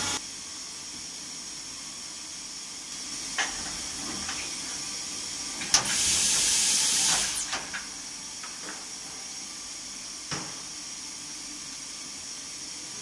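DMG Mori DMC 1035 V eco vertical machining center running with a steady high hiss. Sharp clicks and knocks come now and then, and a loud burst of hissing air starts about six seconds in and lasts about a second and a half.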